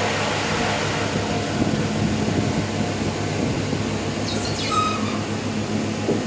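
Elevator car travelling down, with the steady hum and rumble of the ride. A brief high squeak comes about four and a half seconds in.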